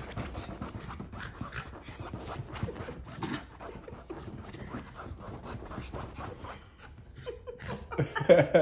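Mini poodle panting and scuffling on a fabric couch during rough play, a fast run of breathy, rustling strokes. A short, louder vocal sound comes near the end.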